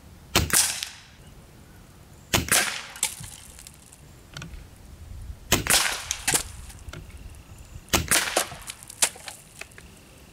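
Gamo Swarm Magnum Pro .22 gas-piston break-barrel air rifle fired four times, about two to three seconds apart. Each sharp shot is followed closely by a lighter knock as the pellet hits a can.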